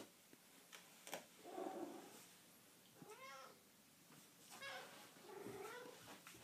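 A domestic cat making a few quiet, short meows that bend up and down in pitch, from about a second and a half in, after a faint knock at the start.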